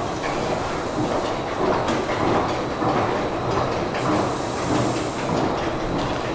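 Escalator running, a steady mechanical rattle and hum from its moving steps.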